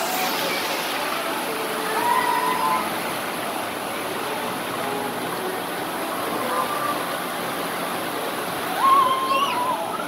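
Water spraying and splashing from a water-park play tower into a shallow pool, a steady rushing hiss, with distant children's shouts and calls rising over it about two seconds in and again near the end.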